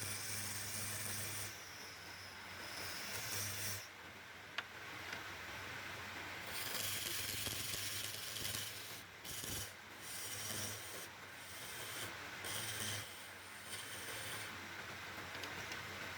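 Wood being worked on a lathe: a tool or abrasive rubbing and scraping against the spinning workpiece, a steady hiss that swells and eases several times, over a low motor hum that comes and goes. A single sharp click sounds about four and a half seconds in.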